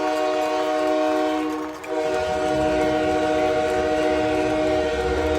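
Calgary Hitmen hockey arena goal horn blowing a loud, steady chord of several tones. It breaks off briefly about two seconds in, then sounds again.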